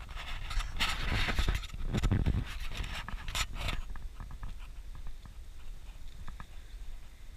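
Footsteps on a dirt track with clothing rubbing and scraping against a body-worn camera. The rustling is loudest in the first few seconds, then gives way to softer, irregular steps.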